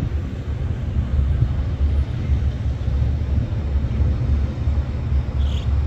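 Low rumble of a patrol boat's engines as it runs past at speed, wavering in level.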